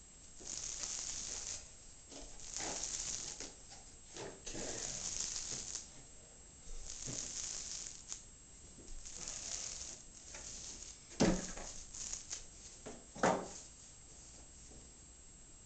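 Paint roller on an extension pole rolling paint across a ceiling in repeated strokes: a sticky, crackling hiss about every two seconds. Two sharp knocks come about two-thirds of the way through.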